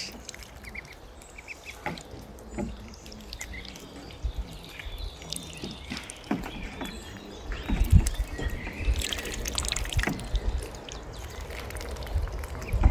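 Small splashes, drips and bill clicks of white Muscovy ducks dabbling and drinking from a crate and bowls of water, with faint bird chirps and a few low thumps.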